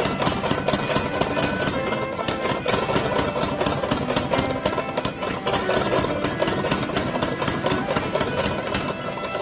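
Power hammer pounding hot steel in rapid, repeated blows while a hatchet is forged, with music playing over it.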